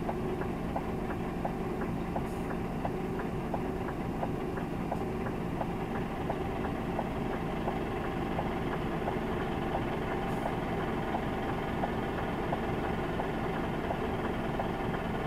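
Diesel engine of a 44-ton HGV idling while stationary, heard from inside the cab as a steady low hum. A light regular tick about twice a second runs along with it.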